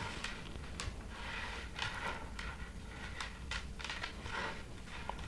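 Faint rustling and scattered light clicks, like small objects being handled and set down.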